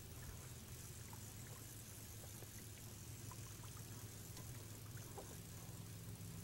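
Faint water lapping and trickling against an inflatable rubber boat, over a steady low hum, with a few faint ticks.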